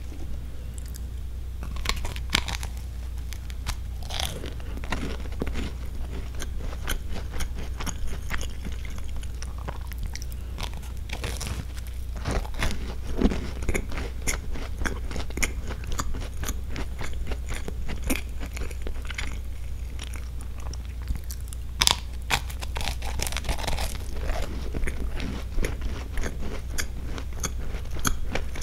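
Close-up biting and chewing of a crisp chocolate wafer-cookie sandwich (Roppongi Palette): a continuous run of small crunches and crackles, with a few louder bites. A steady low hum runs underneath.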